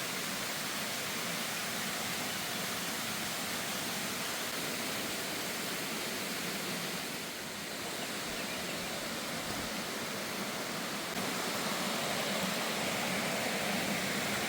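Steady rush of flowing water, a constant hiss with no break, growing a little louder near the end.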